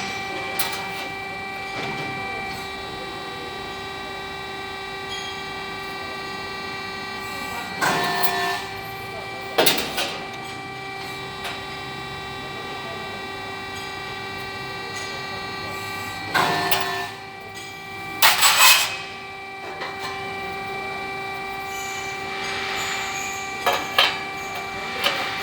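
A CNC press brake's steady machine hum, made of several fixed tones. Twice, about eight seconds apart, the tone briefly changes in a short work cycle, and each change is followed about a second later by a sharp clatter. There are smaller knocks near the end.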